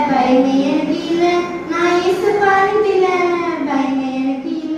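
Girls singing a Tamil Christian song into a microphone, a continuous melody of held notes that slide from pitch to pitch.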